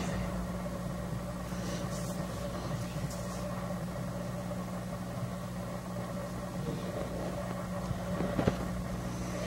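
A steady low hum, with a few faint rustles.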